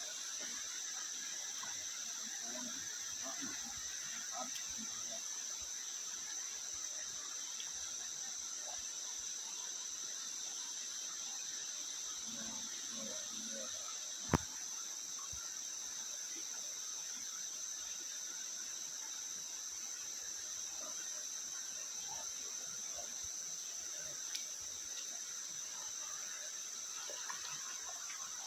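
Steady, high, continuous chirring of an insect chorus over the faint wash of a shallow river, with a single sharp click about halfway through.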